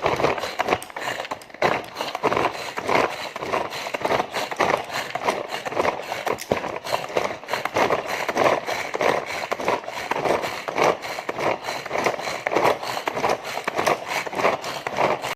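Hand-operated kitchen chopper working tomato pieces: a continuous, irregular clatter of the spinning blades and plastic bowl, with tomato chunks knocking about inside.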